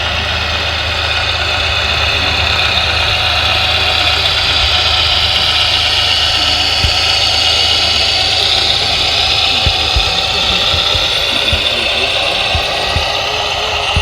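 Radio-controlled construction model machinery running: a steady high-pitched whine over a low engine-like drone, with scattered knocks in the second half.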